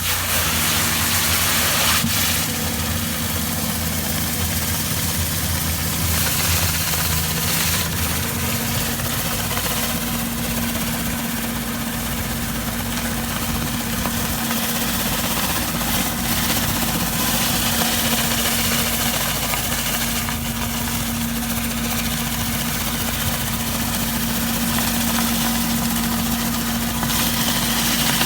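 Hot-water pressure washer's engine running steadily, with the hiss of the high-pressure water spray on paving.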